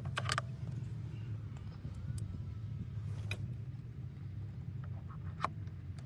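Screwdriver working the screws of a Jeep Wrangler's plastic steering-column shroud: a few scattered light clicks and taps, the sharpest near the end, over a steady low hum.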